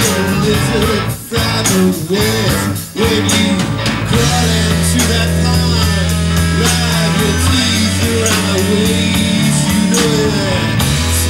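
A live rock band playing a blues song: a guitar with bending notes over drums, and a bass that holds one low note from about four seconds in.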